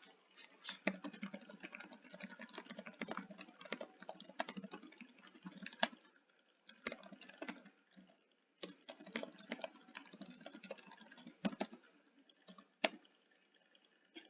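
Typing on a computer keyboard in runs of rapid key clicks, pausing around six and eight seconds in, with a last couple of taps near the end.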